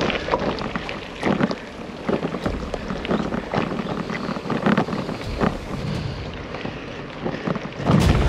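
Bicycle tyres rolling over a loose gravel road, a running crunch with many small clicks and rattles, with wind buffeting the microphone. About eight seconds in the sound swells louder.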